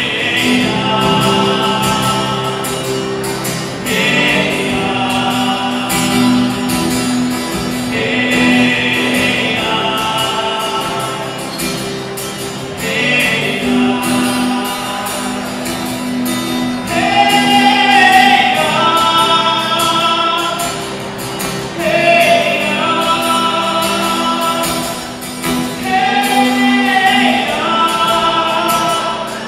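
Live song: a man singing, accompanied by an acoustic guitar.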